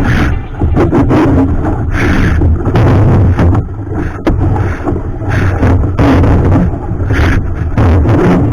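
Wind buffeting the microphone with rushing water noise aboard a sailing yacht under way, in uneven loud gusts.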